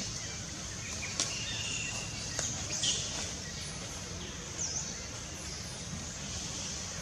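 Forest ambience: a steady high hiss of insects with a few short bird chirps and sharp clicks scattered through it, the loudest near three seconds in.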